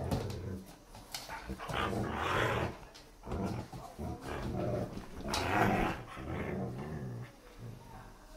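Dogs growling in play over a chew toy, in several rough bursts of about a second each with short pauses between.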